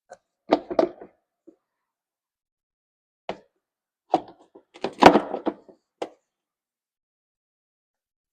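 Grass-catcher chute knocking and clunking against a John Deere JS45 walk-behind mower's deck as it is fitted back on. A quick cluster of knocks about half a second in, a single tap a little after three seconds, and a busier run of knocks and rattles between about four and six seconds.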